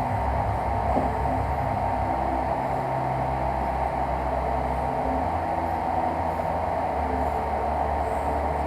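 Prusa i3 3D printer printing: the cooling fan gives a steady whir, and the stepper motors hum low, their tones shifting every second or two as the print head changes moves.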